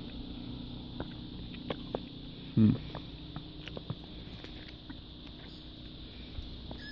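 Footsteps crunching through deep fresh snow: faint, irregular crunches over a steady low hum, with one brief voice sound about two and a half seconds in.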